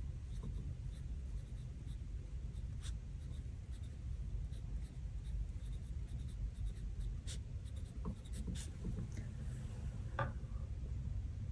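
Pen writing on planner paper: soft scratching strokes with a few light ticks, over a low steady room hum.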